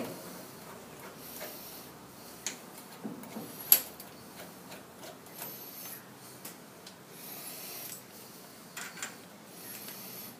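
Scattered small metal clicks and clinks from hands fitting the nuts and bolts of a three-jaw chuck onto a lathe spindle. The sharpest click comes a little under four seconds in, with a few more near the end.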